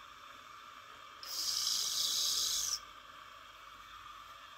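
Steam hissing sharply out of a valve on top of a small Sterno-heated toy steam engine's boiler for about a second and a half, starting a second in and cutting off abruptly as the valve is closed. The boiler is still coming up to pressure.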